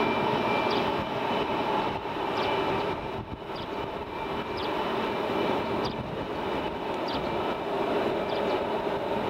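F-22 Raptor fighters' Pratt & Whitney F119 turbofan engines at taxi power: a steady jet whine with several held tones over a broad rushing roar.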